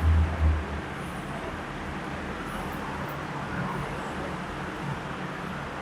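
Steady background noise with no speech, opening with two short, low rumbling thumps in the first second.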